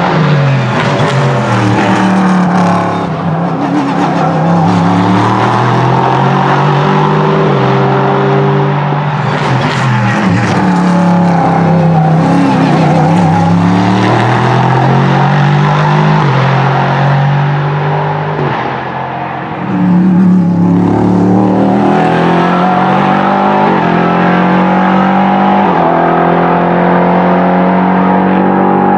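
Ligier JS P3 race car's 5.0-litre Nismo VK50 V8 driven hard, its pitch climbing and stepping back down again and again as it works through the gears. The loudness dips briefly about 3 seconds in and again just before 20 seconds, then comes back suddenly.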